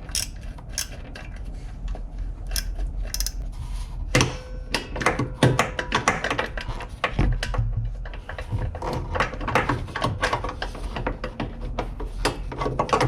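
Irregular metallic clicks and clinks of hand tools being worked and handled.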